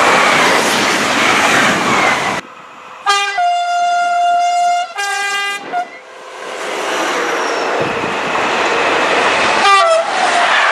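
French SNCF train horn sounding a blast of about two and a half seconds that goes low, then high and held, then low again. Before it and after it comes the rushing noise of trains passing at speed, and a second, shorter horn blast sounds over that noise near the end.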